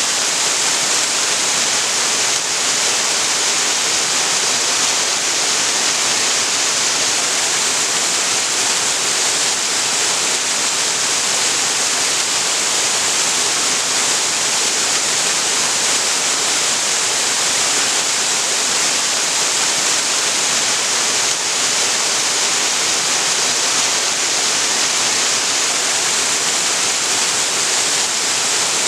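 Waterfall on a creek: water falling and splashing in a steady, even rush with no change.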